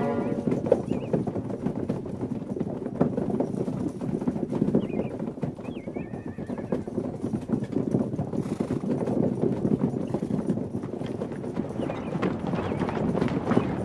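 Many horses' hooves clip-clopping on the ground as a group of riders moves about, with a short horse whinny about five seconds in.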